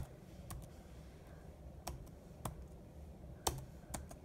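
Computer keyboard keys being pressed one at a time: about half a dozen separate, unevenly spaced clicks of slow typing.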